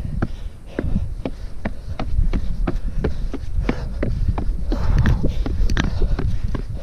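Footsteps on a hillside trail, even thuds at about two steps a second, over a steady low rumble.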